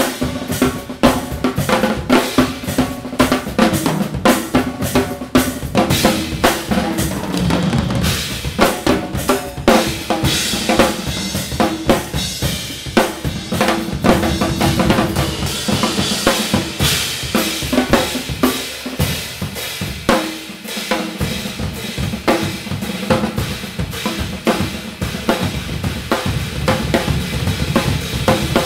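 Two drum kits played together in an improvised duet: a dense run of snare, bass drum, tom and cymbal strokes. The bass drum drops out for about a second about two-thirds of the way through.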